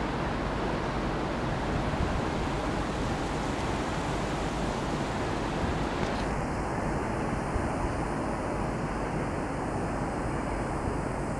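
Steady rushing noise of a passenger train's coaches rolling away along the track.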